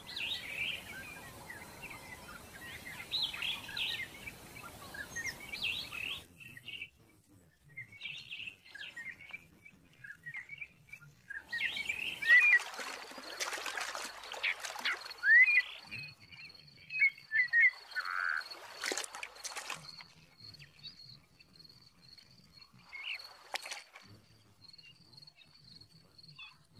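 Natural outdoor ambience full of short chirping animal calls. A few louder sudden noises come near the middle, and a steady high-pitched tone runs through the second half.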